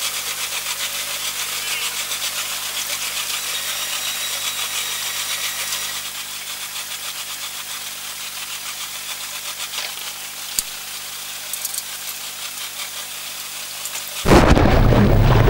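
Outboard engines of an inshore lifeboat (rigid inflatable) running at low speed, a steady buzzing hum picked up by the boat's on-board camera, a little quieter after about six seconds. Near the end the sound cuts abruptly to louder speech.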